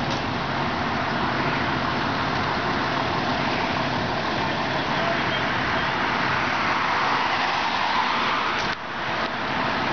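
Steady road-traffic noise, with a car passing close by that swells near the end and drops off sharply.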